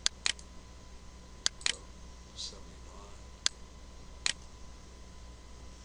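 Computer keyboard keys struck one at a time as a search is typed: about six sharp, separate clicks, unevenly spaced.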